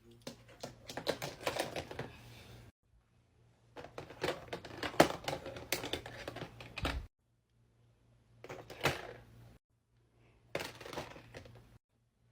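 Small plastic fidget toys clicking and clattering as they are handled and sorted into a storage box or drawer. The clicks come in four bursts of rapid clicks, each cut off abruptly by dead silence.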